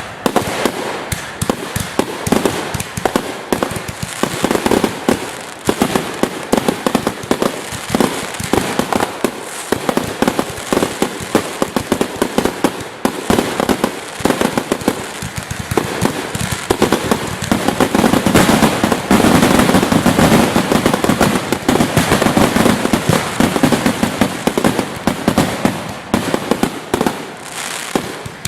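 Fireworks finale barrage: rapid, overlapping bangs from many shells and cakes going off at once, with no break. The bangs are thickest and loudest about two-thirds of the way through.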